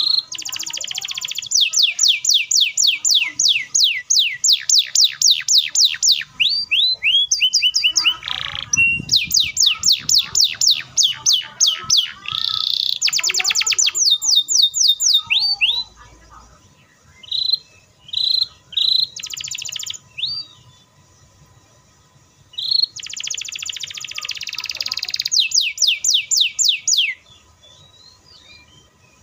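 Canary singing long, fast, tightly spaced rolls of rapid falling notes, about five a second, broken by short harsh buzzy phrases. The song stops for a few seconds in the middle, then starts again.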